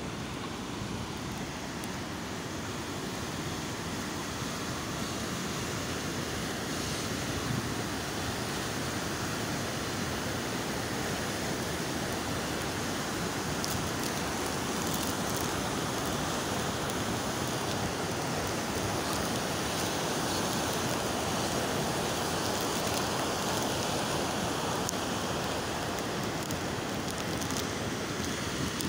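Fast mountain river rushing over rocks in white water, a steady noise that grows a little louder past the middle.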